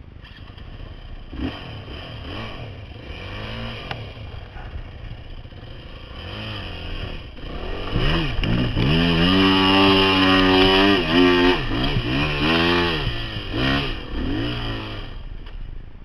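Yamaha WR250F dirt bike's single-cylinder four-stroke engine revving up and down through a sandy creek crossing, with water splashing. The revs and loudness build to a peak about halfway through, with several quick blips of the throttle, then ease off near the end as the bike climbs out.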